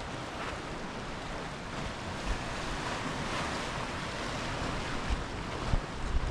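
Sea surf washing onto the shore at high tide, swelling about three seconds in, with wind buffeting the microphone near the end.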